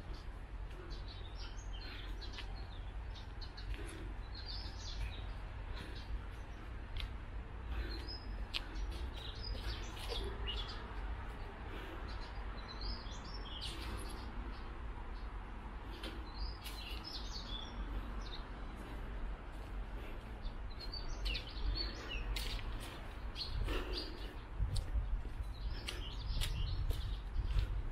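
Small birds chirping repeatedly over a steady low outdoor rumble, which grows louder near the end.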